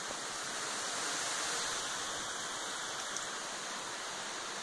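Steady rain falling on trees and grass, an even hiss that grows a little louder about a second in.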